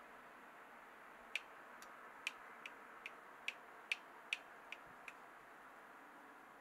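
A run of about ten sharp, faint clicks, roughly two or three a second, starting about a second in and stopping about five seconds in, over a faint steady hiss.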